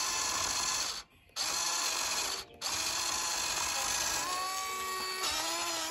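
Small electric drive motor and plastic gearbox of a battery-powered toy tractor whirring as it pulls a brick-loaded trailer over dirt. The whirr cuts out briefly twice, and a steadier pitched whine joins it near the end.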